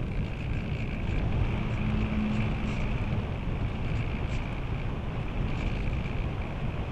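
Airflow rushing over an onboard camera on a radio-controlled glider in flight: a steady wind rush with a constant higher hiss, and a brief low hum about two seconds in.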